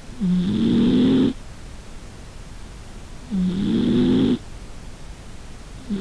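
American Shorthair cat snoring in its sleep, recorded right at its face: three snores about three seconds apart, each about a second long with a low tone that rises at its start, the third beginning near the end. The owner thinks the snoring may come from the cat being overweight.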